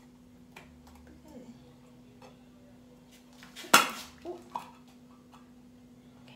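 A metal shoe-polish tin is handled and its lid opened: faint taps and scrapes, then a sharp metallic click a little under four seconds in, followed by two lighter clicks. A low steady hum runs underneath.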